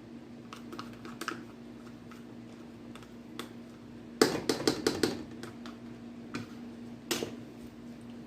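Small can of tomato paste being emptied into a stew pot: a quick run of light clicks and taps about four seconds in and one more near the end, over a steady low hum.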